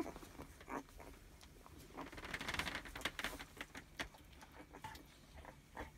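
Newborn puppies nursing on their mother, making a few faint scattered squeaks and grunts.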